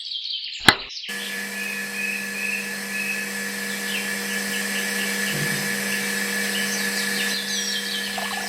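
A click, then about a second in a small electric motor starts and runs with a steady hum.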